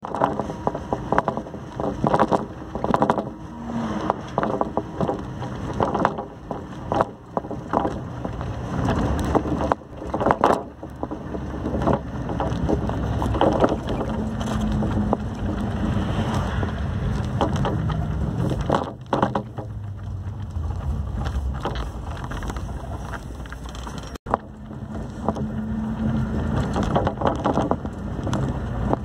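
Road noise from a moving road vehicle: engine and tyres give a steady low rumble, with frequent knocks and bumps over roughly the first twelve seconds and a steady low hum in two stretches, near the middle and near the end. The sound cuts out for an instant about three-quarters of the way through.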